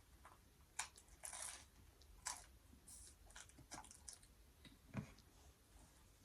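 A person chewing a last mouthful of food close to the microphone: soft, irregular mouth clicks and short wet smacks, with no steady rhythm.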